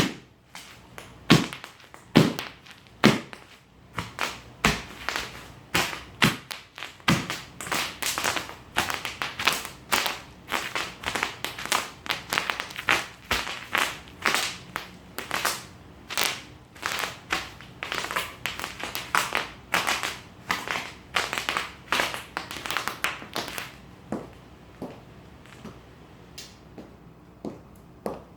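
Bubble wrap popping in sharp snaps at irregular intervals, sparse at first, coming thick and fast through the middle, then thinning out near the end.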